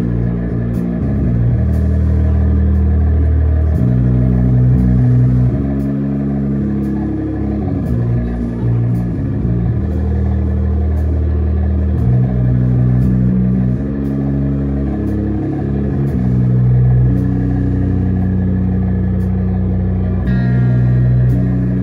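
Live band playing a slow, low riff: long held guitar and bass notes that change about every two seconds, with faint regular ticks above them.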